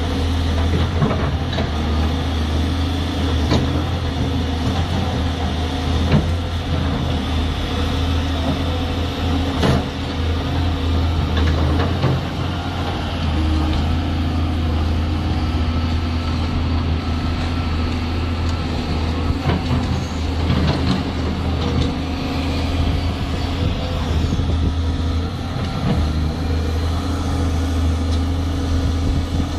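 Volvo EC240 excavator's diesel engine running steadily with a deep hum, with sharp knocks now and then.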